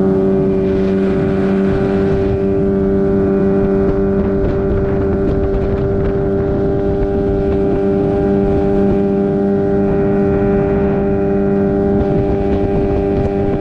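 Motorboat engine running at a steady cruising speed, with wind on the microphone.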